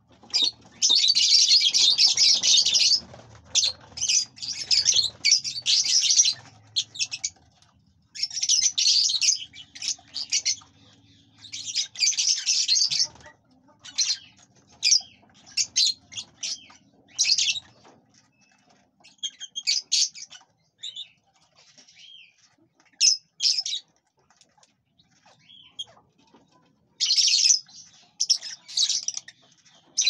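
Small parrots chattering off-camera in rapid, high-pitched bursts of a second or two, several birds at once. The bursts come thick at first, thin out to short scattered chirps in the middle, and pick up again near the end.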